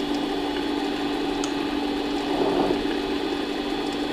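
Harbor Freight mini lathe running with a steady motor and gear hum while a turning pass is taken on a shaft, fed by hand; the sound swells briefly a little past halfway.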